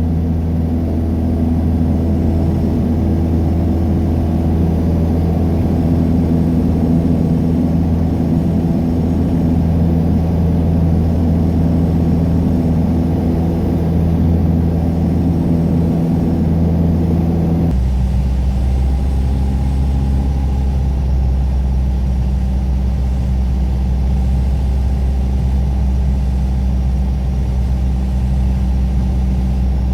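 Piper PA-28 Warrior's four-cylinder piston engine and propeller running steadily at a loud, even level. About two-thirds of the way through, the sound shifts abruptly to a deeper tone.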